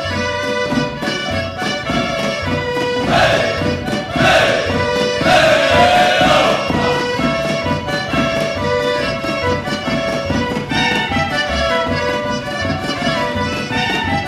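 Serbian folk dance music playing a running melody over a steady bass beat. Voices call out a few times a few seconds in.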